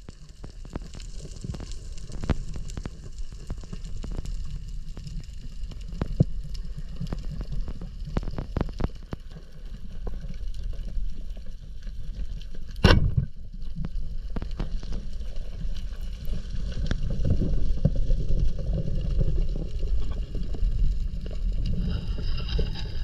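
Underwater sound picked up by a camera housing: a steady low rumble of water moving past it, with scattered sharp clicks, and one loud sharp crack about thirteen seconds in.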